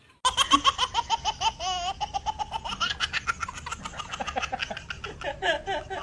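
A toddler laughing hard, in rapid high-pitched bursts of giggles that start suddenly a moment in and keep going.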